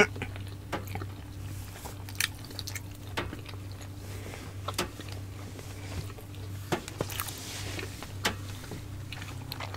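Close-miked chewing of steamed siomai dumplings: scattered soft wet mouth clicks and smacks every second or so, over a low steady hum.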